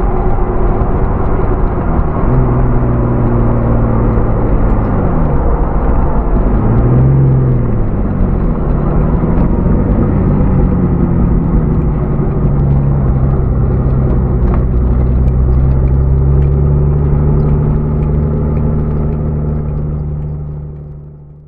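Jeep TJ's 4.0-litre inline-six through a Flowmaster FlowFX exhaust, heard from inside the cabin while driving. The engine note dips and rises a few times in the first ten seconds, then holds a steady cruise before fading out at the end.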